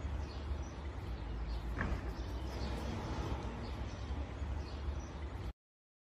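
Outdoor ambience: a steady low rumble with faint, scattered bird chirps, cutting off suddenly near the end.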